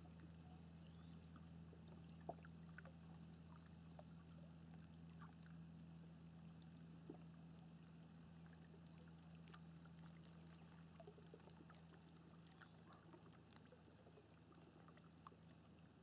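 Faint calm water lapping and dripping, with scattered small plinks and ticks over a steady low hum.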